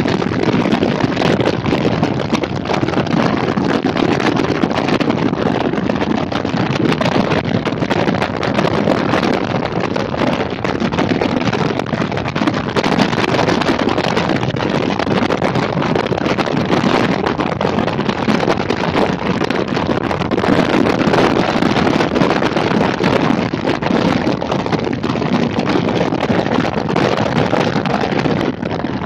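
Steady, heavy wind rushing over the microphone of a camera mounted on a moving motorcycle at road speed, with the motorcycle's engine and tyre noise blended in underneath.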